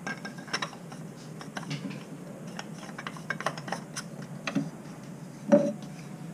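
Small metal faucet parts clicking and scraping as the dome cap and handle of a Moen single-handle kitchen faucet are fitted back over a new 1225 cartridge, with a louder, briefly ringing clink about five and a half seconds in.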